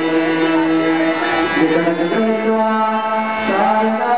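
Hindu chant in long droning notes, several voices holding one pitch and then moving to a lower note about two seconds in.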